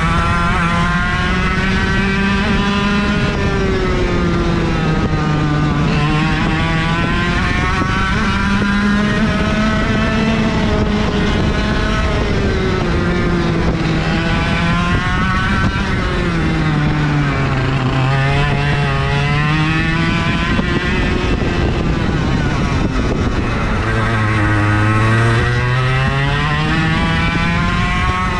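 IAME KA100 kart engine, a 100cc two-stroke, heard onboard while lapping a track: the engine note climbs as it revs out along the straights and drops back in the corners, over and over, at a steady high level.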